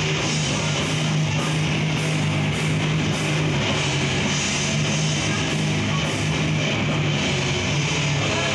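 Death metal band playing live: distorted electric guitars and bass holding low notes for long stretches, with drums and cymbals behind them.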